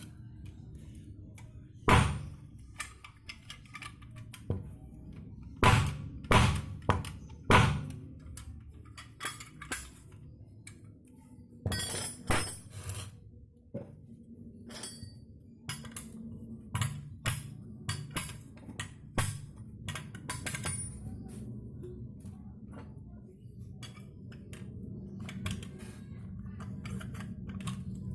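Metal tools and parts knocking and clinking while a scooter's rear CVT pulley is taken apart for bearing replacement. There are a few loud knocks in the first eight seconds and lighter clinks after, over background music.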